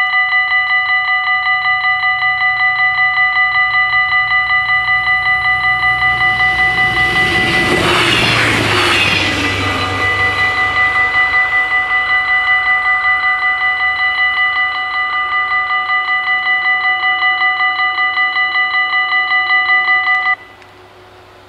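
Dutch level-crossing warning bells ringing loudly in a fast, even pulse, warning of an approaching train. A Stadler GTW diesel railcar passes in a brief rush of noise about six to ten seconds in. The bells cut off abruptly near the end as the barriers rise, a sign that the crossing is clear.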